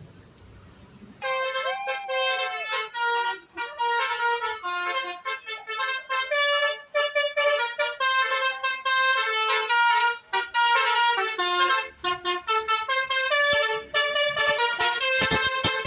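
Bus's multi-tone 'telolet' horn playing a quick melody of stepping notes, starting about a second in and going on with short breaks, a little louder toward the end.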